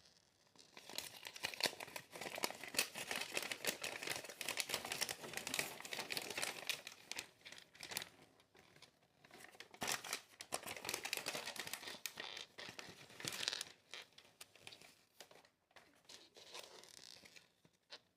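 LEGO set packaging being torn open and crinkled by hand, an irregular run of crackling and tearing that quietens near the end.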